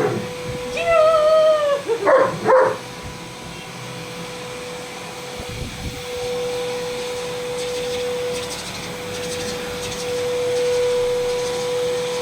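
Vacuum cleaner running with a steady hum that grows a little louder about halfway through. Near the start a German Shepherd gives a drawn-out, slightly falling whine and then a couple of short barks.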